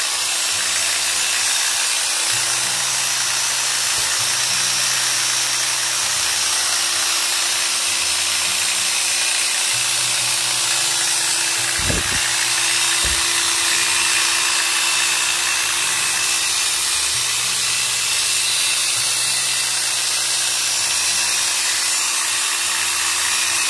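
A Makita 110-volt, 450-watt electric hedge trimmer with a 70 cm blade runs steadily at full speed, its reciprocating blades giving a loud, even buzz. There is a brief knock about twelve seconds in. Near the end it is switched off and its pitch falls as it winds down.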